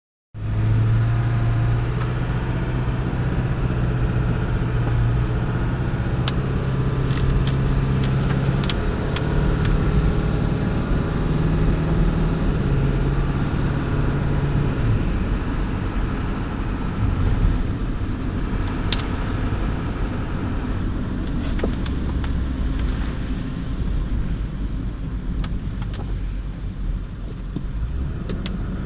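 A motor vehicle's engine running while driving, with road noise. The engine hum steps up and down in pitch during the first half and settles lower after about fifteen seconds, with a few scattered sharp clicks.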